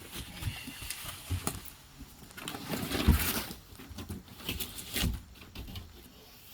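Cardboard shipping box and packing material scraping and rustling, with irregular knocks and thumps as a heavy e-bike is pulled out of it; the loudest thump comes about three seconds in.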